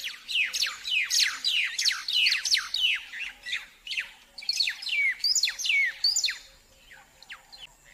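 A flock of weaver birds chirping: many short, quick, downward-sweeping chirps overlapping one another, thinning out after about six seconds.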